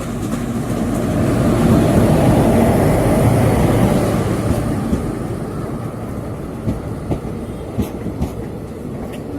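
Train passing on the track: a rushing rumble of wheels on rail that swells to a peak a couple of seconds in and then fades. Wheels click over rail joints in the second half.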